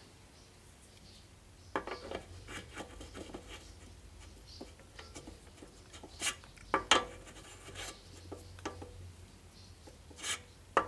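A metal belt pulley being twisted and pushed by hand onto an engine crankshaft: irregular metal-on-metal scraping and clicking, with a few sharper knocks. The pulley is binding on the shaft and won't slide further on.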